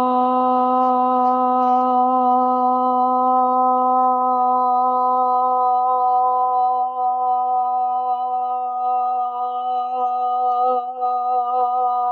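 A woman's voice holding one long 'ah' on a single steady pitch: a slow exhale voiced as sound, emptying the lungs in a sound-breathing exercise. The tone grows slightly unsteady in the last few seconds.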